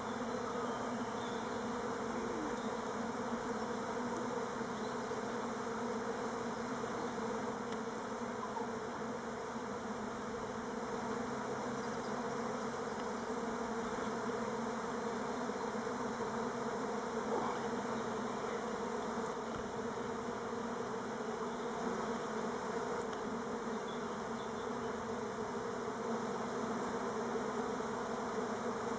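A cloud of Elgon Buckfast honey bees flying in front of their hive entrance, a steady, unbroken buzz. The beekeeper hopes it is orientation flight and not swarming.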